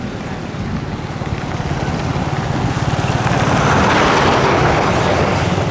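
Jet noise from a Boeing 737-400's two CFM56-3 turbofan engines, a low rumble under a rushing roar that grows louder through the middle and stays at its loudest near the end as the airliner passes close by.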